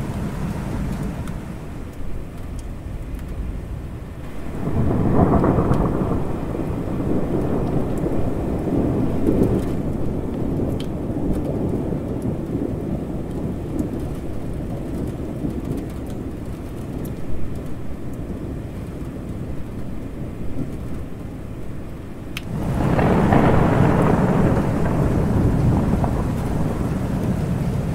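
Thunderstorm: steady rain with rolling thunder. One long rumble swells about five seconds in and rolls on for several seconds, and a second rumble builds near the end.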